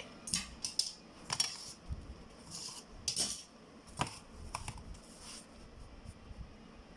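Pencil and drawing instruments working on paper: a series of short scratching strokes and light clicks, thinning out after about five seconds.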